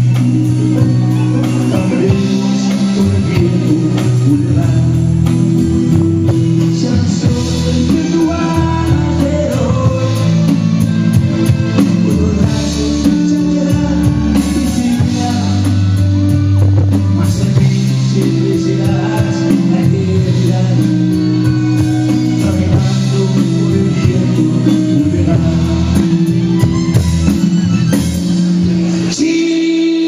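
Live band playing a nueva ola pop song, with guitar and a steady bass line, while a male singer sings into a hand-held microphone.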